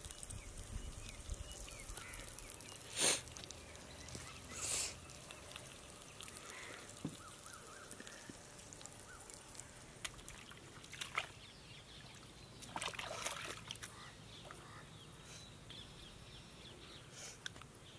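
Water sloshing and splashing in a few short bursts, the loudest about three seconds in, over a steady outdoor background.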